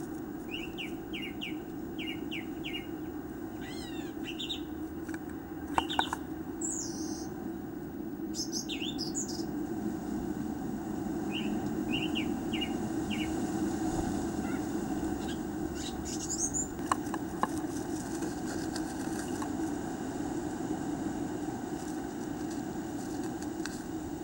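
Small songbirds chirping and calling: groups of short quick chirps and a few higher sliding notes, over a steady low hum. A couple of sharp taps about six seconds in and again later.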